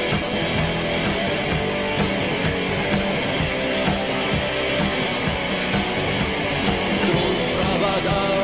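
Rock band playing live: guitar over a steady drum beat, an instrumental passage with no singing.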